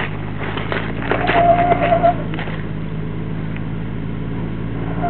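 Jeep Wrangler TJ engine running steadily at low revs as it crawls up a rutted dirt hill. Sharp clatters and knocks from rocks and the chassis come in the first couple of seconds, with a brief high, steady whine about a second in.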